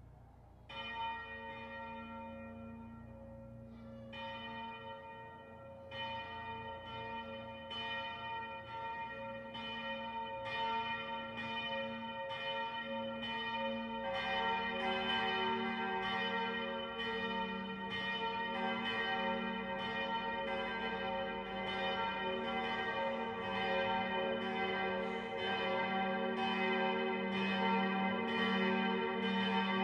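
Five-bell peal of Rüetschi-cast church bells (B°, d', f', g', b') with Pro-Bell clappers, starting up: bells come in one after another with irregular swinging strikes, and the ringing grows fuller and louder with a deeper tone joining about halfway through.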